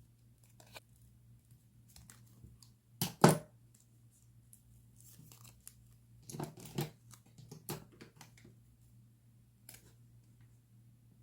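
Paper-crafting sounds from diary decorating: short, crisp snips, rustles and tears of paper and masking tape. The loudest comes about three seconds in, with a cluster of smaller ones between six and eight seconds.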